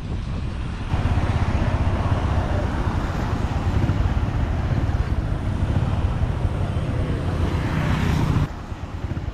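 Motor vehicle running along a road, a steady rumble with wind on the microphone. It jumps louder about a second in and drops off suddenly near the end.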